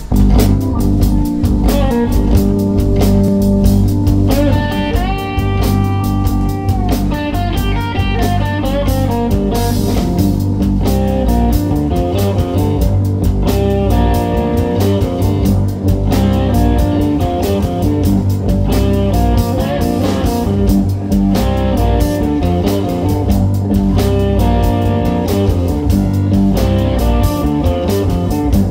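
Live blues band playing an instrumental passage: a Hamer Duotone electric guitar plays lead with held, ringing notes over keyboards, bass guitar and a drum kit.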